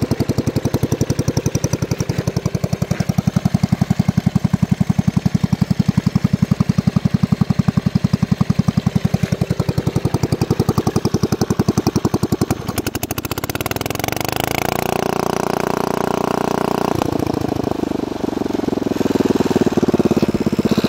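Small engine of an old garden tractor running through a short open exhaust stack, a loud, fast, even chugging. About twelve and a half seconds in the sound changes to a smoother drone with a gliding whine, and it shifts again a few seconds later.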